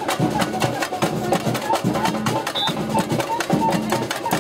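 Street percussion band playing hand-held tambourines, a fast, dense rhythm of struck skins and jingles.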